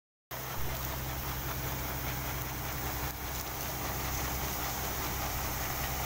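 Combine harvester running steadily while its unloading auger pours threshed wheat onto a pile: a constant low engine drone with an even hiss over it, cutting in abruptly just after the start.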